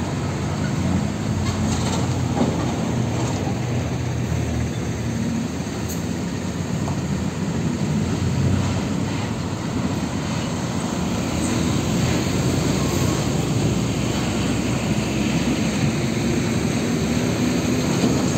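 Road traffic dominated by heavy diesel tanker trucks running and pulling through, with motor scooters passing close. An engine note rises near the end as a vehicle speeds up.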